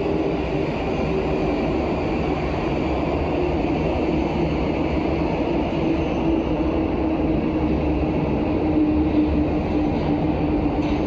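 Prague Metro Line A train running through the tunnel between stations: a steady rumble of wheels on rail, with a hum that slowly drops in pitch.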